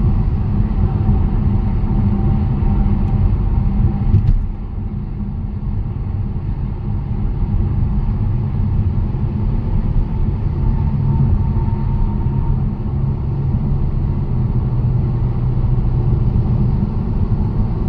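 A car driving on a road: steady low rumble of tyre and engine noise, dropping slightly a little over four seconds in.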